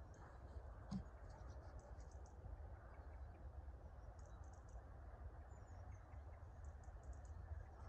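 Near silence: a faint low rumble of open-air background with scattered soft high clicks, and a single soft thump about a second in.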